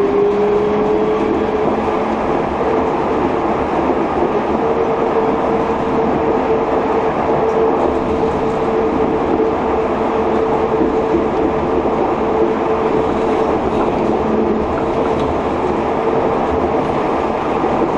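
Yurikamome rubber-tyred automated guideway train running at speed, heard from inside the front car. There is a steady rumble of rubber tyres on the concrete guideway. Over it, a traction motor whine rises in pitch during the first second or so as the train picks up speed, then holds steady.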